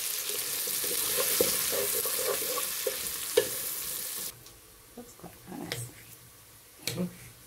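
Sliced onions sizzling as they fry in butter in a pot, with a wooden spoon scraping and stirring through them. About four seconds in, the sizzling cuts off suddenly, leaving a quiet background with a few faint clicks of a knife and fork cutting a cooked sausage.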